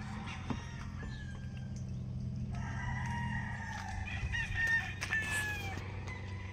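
A rooster crows, one long drawn-out call from about two and a half seconds in, over the steady low hum of an engine running.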